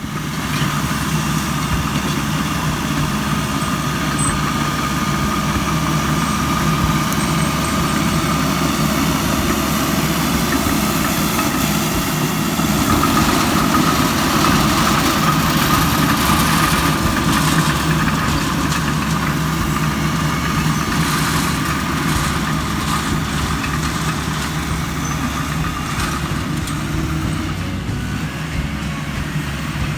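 Heavy construction equipment running steadily at work, a continuous engine drone with a high steady whine above it that grows a little louder about halfway through.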